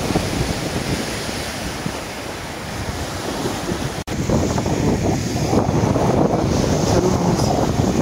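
Low surf breaking and washing up a sandy shore, with wind buffeting the microphone. There is a momentary dropout about four seconds in, after which the surf and wind are louder.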